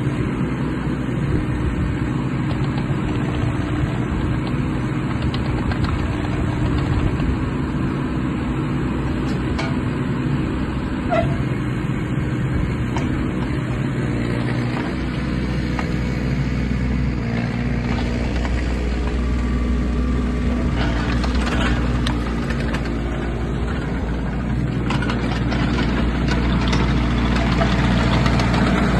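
Diesel engine of a Takeuchi TB210R micro excavator running steadily while the boom and bucket are worked. It grows louder near the end as the machine tracks up close.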